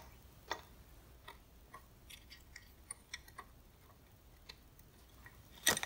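Light, scattered clicks and taps from a circuit board and a large electrolytic capacitor being handled and lined up, with a louder cluster of clicks near the end.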